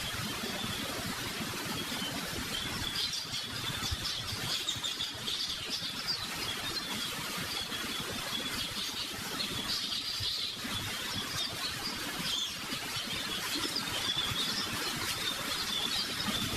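Birds chirping continually in the background, many small high calls overlapping above a low steady hiss.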